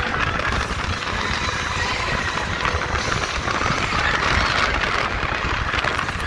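Space Mountain roller coaster train running along its track: a steady rumble with a hiss of rushing air.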